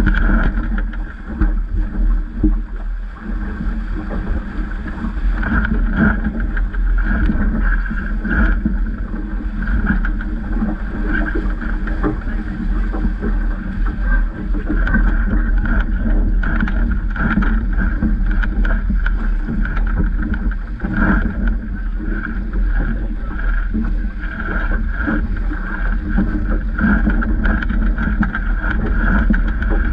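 Water rushing and splashing past the hull of a Vaucluse Junior sailing dinghy moving fast, with wind buffeting on the microphone.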